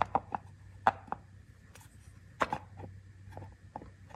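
Sharp clicks and knocks of parts of a reciprocating saw being handled, a few in quick succession at the start, another about a second in and a pair around two and a half seconds, over a low steady hum.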